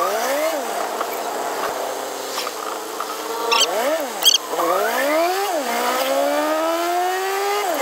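Jeepney engine heard from inside the cabin, its pitch rising as it accelerates and dropping back at each gear change or let-off, several times over, ending with a long climb that drops near the end. A few short high squeaks are heard in the middle.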